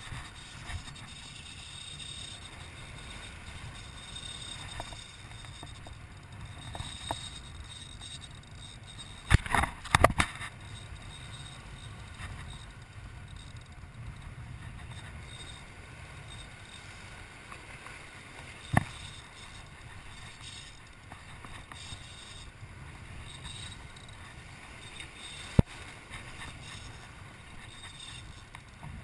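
Wind rumbling on the microphone over surf washing against jetty rocks. A quick cluster of loud knocks comes about a third of the way in, and two single sharp clicks come later.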